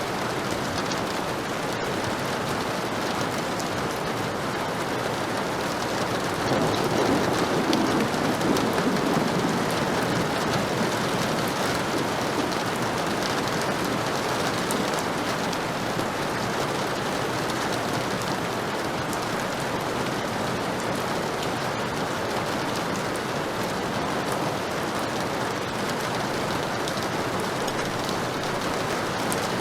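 Heavy rain falling steadily. About six seconds in, a low rumble of thunder swells up and fades away over the next few seconds.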